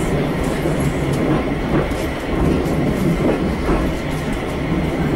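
Inside the cab of a 280 hp Walker diesel railmotor as it travels: the engine runs steadily under the rumble of the wheels on the rails, with a few faint knocks from the track.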